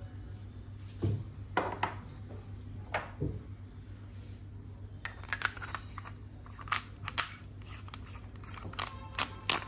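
Scattered clicks and clinks of small hard parts being handled and set down while a wireless tattoo pen kit is unboxed, with a busier run of clicks about halfway through, over a steady low hum.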